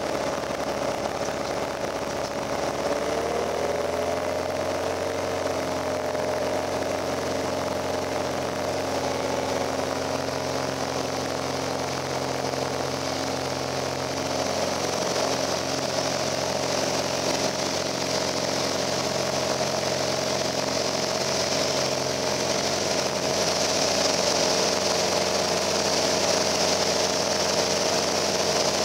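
Piper Cherokee Arrow's piston engine and propeller at takeoff power, heard from inside the cabin during the takeoff roll and climb-out. The engine note rises a few seconds in, then holds steady while the rush of air grows louder.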